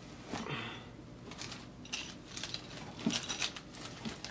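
A cloth drawstring pouch being handled and opened, the small metal accessories and connectors inside clinking and jangling against each other, with soft fabric rustling.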